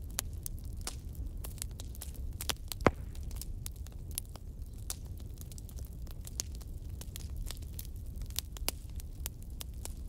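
Wood campfire crackling, with frequent irregular sharp snaps and one louder pop about three seconds in, over a low steady rumble.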